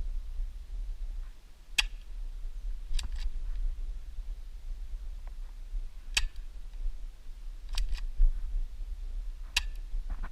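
Spring-powered airsoft pistol (Vigor Sig Sauer P226 replica, ABS plastic) firing single shots: about five sharp snaps a second or more apart, two of them with a quick second click close behind. A steady low rumble runs underneath.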